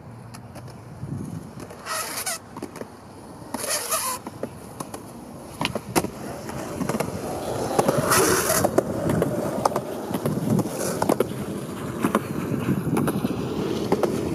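Skateboard wheels rolling on a concrete path, getting louder through the second half, with several sharp clacks of the board's wood and trucks hitting the ground.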